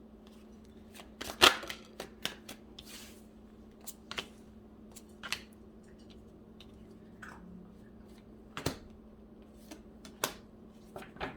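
Modern Witch Tarot cards being shuffled and handled, with scattered sharp card snaps and taps, the loudest about a second and a half in.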